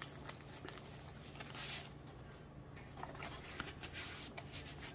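Paper rustling and sliding as thick handmade journal pages are turned and handled, with small taps and one brief louder swish about a second and a half in.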